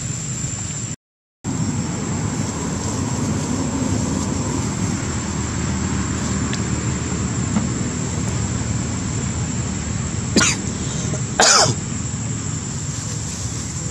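Steady outdoor background noise with a thin high whine, cutting out completely for a moment about a second in, then two short cough-like bursts, one after the other, near the end.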